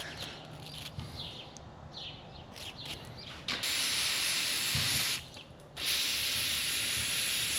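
Aerosol brake cleaner spraying in two long hisses, the first about 1.5 s and the second about 2 s after a short pause, flushing dried old grease out of a motorcycle turn signal switch.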